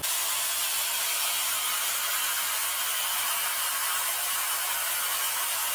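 Compressed air from a hose nozzle blowing steadily into a cutaway refrigeration oil separator, making an even hiss as it sprays oil through the housing. The air stands in for refrigerant gas being separated from the compressor oil. The hiss starts abruptly.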